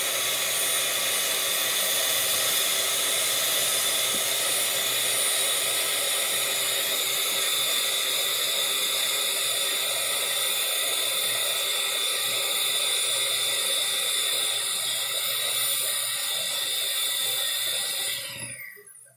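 Electric hand mixer running steadily with its beaters in a plastic bowl. It is switched off near the end, and its whine drops in pitch as the motor spins down.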